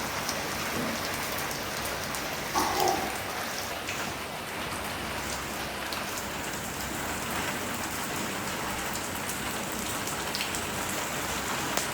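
Steady rain falling, with scattered drop ticks through the hiss. A brief louder sound stands out about three seconds in.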